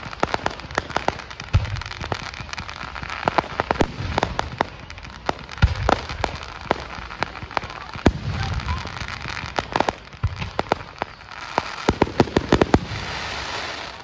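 Aerial fireworks going off: dense, rapid crackling with several deep booms from shell bursts.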